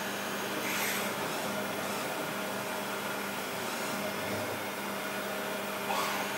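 CNC milling machine running during a milling job: a steady mechanical hum with a constant tone, and two brief rushes of hiss, about a second in and near the end.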